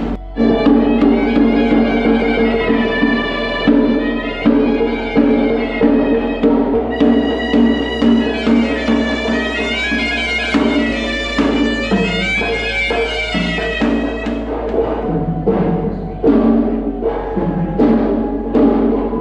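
Sri Lankan hevisi ritual drumming: traditional drums beaten in a fast, steady rhythm under a shrill reed pipe (horanawa) playing a wavering, gliding melody, the music of a temple offering ceremony.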